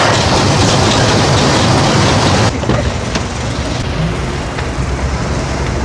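Steady kitchen hiss that cuts off abruptly about two and a half seconds in. After it, a small hatchback's engine idles with a steady low hum.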